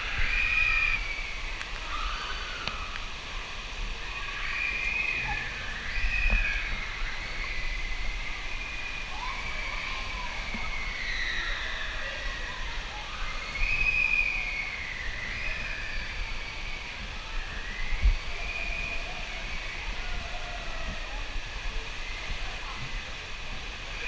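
Lazy-river water sloshing and hissing around a floating waterproof action camera, with distant voices calling out and a few low thumps, the sharpest about eighteen seconds in.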